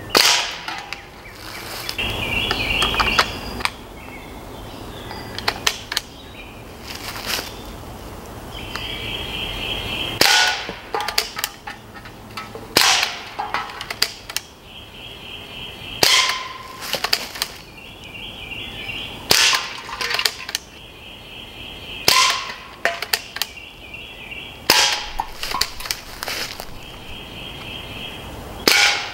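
Umarex Ruger 10/22 pellet rifle, powered by CO2, firing a long series of sharp shots. The shots come a second or a few seconds apart, some in quick pairs.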